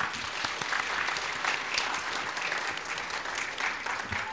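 Audience applauding, a dense steady patter of many hands clapping that thins out at the end.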